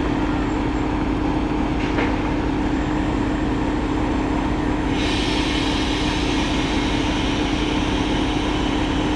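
TEP70BS diesel passenger locomotive standing with its engine running, a steady deep hum with a strong held tone. There is a short click about two seconds in, and about halfway through a steady high hiss, like escaping air, starts suddenly and carries on.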